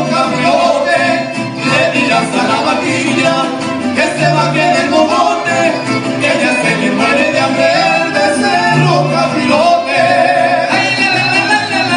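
Mariachi music playing, full and continuous, with a recurring low bass line under it.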